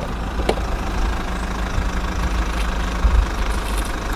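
An engine idling steadily with a low rumble. A sharp plastic click about half a second in, as a toy is set down in a plastic toy dump truck's bed.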